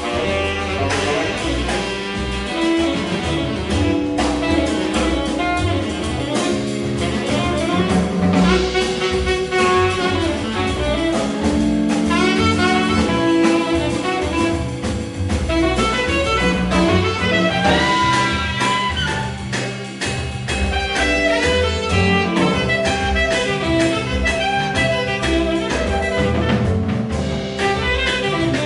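Jazz quintet playing live: a saxophone plays a melodic line over a rhythm section of double bass, drum kit, electric guitar and Rhodes electric piano.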